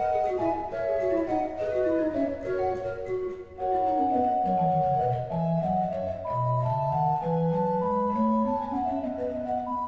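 Pipe organ music from the Arp Schnitger organ, played in several voices. The upper voice plays repeated quick falling runs over held notes, while the bass line steps down and then climbs back up.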